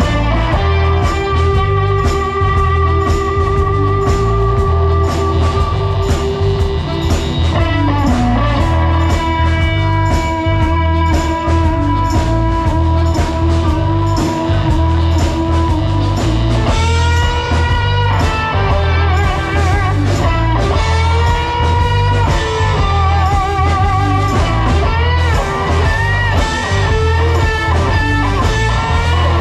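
Live electric blues band playing: a steady drum and bass groove with ticking cymbals, under a lead line of long held notes that bend and waver with vibrato.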